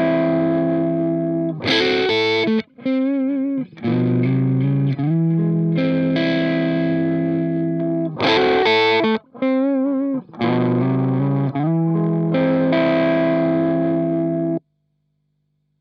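Electric guitar played through a Boss DS-2 Turbo Distortion pedal: sustained distorted chords broken by short lead phrases with wavering bent notes, the same riff played twice. It cuts off suddenly near the end, leaving a faint steady hum.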